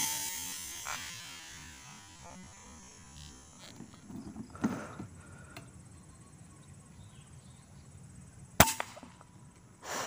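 A single scoped air rifle shot about three-quarters of the way in: one sharp crack with a brief ring. At the start the tail of an earlier shot is still fading, and a few fainter knocks come in between.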